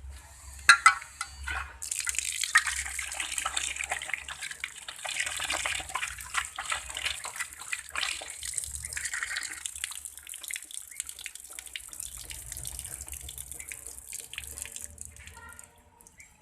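A couple of sharp knocks, then water running and splashing for about thirteen seconds before it stops near the end.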